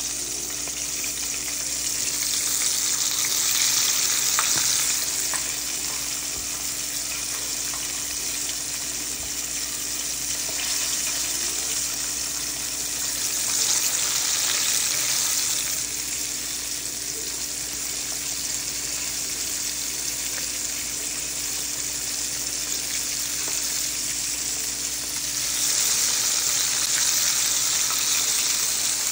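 Flour-coated chicken frying in hot oil: a steady sizzle that surges louder three times as fresh pieces are laid into the oil.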